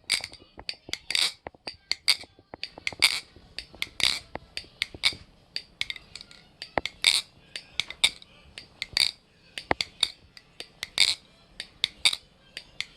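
Zenith replicant balisong (butterfly knife) with Spasm Fingers scales being flipped, its handles and latch clacking together in sharp metallic clicks, the loudest about once a second with lighter ticks between.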